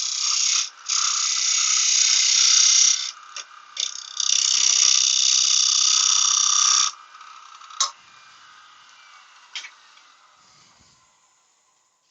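Wood lathe with a tool cutting or working a spinning piece of spalted beech, a loud hiss in three long passes with short breaks. About 7 seconds in the cutting stops and the lathe winds down, fading away with a couple of sharp clicks.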